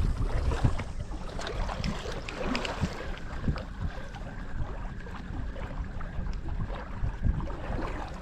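Wind buffeting the microphone and small waves lapping against an aluminum boat hull, with a spinning reel being cranked through a lure retrieve.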